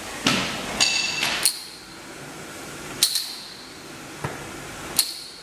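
Aluminium poster-frame stand on a hard floor being stamped on: a series of sharp metal knocks at uneven intervals, several followed by a short high ring.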